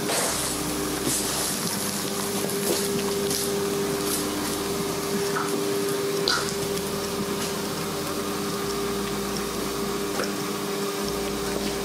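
Steady machine hum over a constant hiss, with a few faint clicks.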